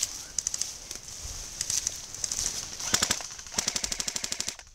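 Airsoft electric guns firing full-auto in several quick bursts of rapid clicks, the longest burst near the end.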